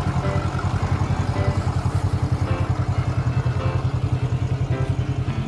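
A motor vehicle's engine idling with a steady, low, rapidly pulsing throb.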